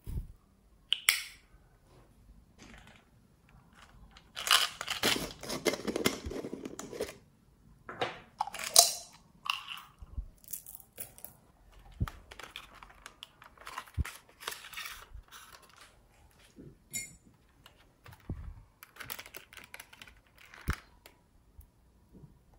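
Crackly, crunchy handling noises as glittery pressed makeup is crumbled and scraped onto glossy slime. They come in irregular bursts, with a few sharp plastic clicks.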